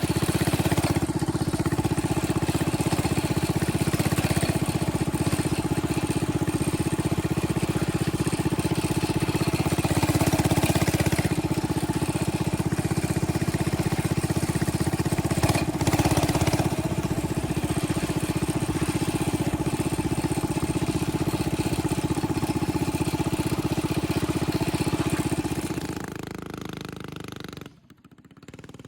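Motorbike engine with a newly fitted Mikuni carburetor running steadily at idle, which the owner says sounds good. The engine sound falls away sharply shortly before the end.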